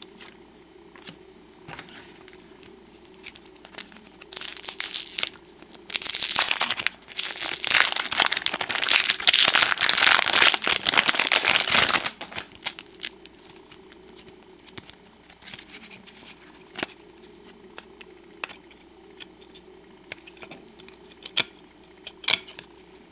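A baseball card pack's wrapper crinkling and tearing open: a short loud burst about four seconds in, then a longer stretch from about six to twelve seconds. After that, light scattered clicks of the cards being handled.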